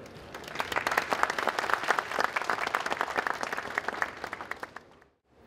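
Audience applauding, many hands clapping at once. It starts about half a second in and dies away near the end.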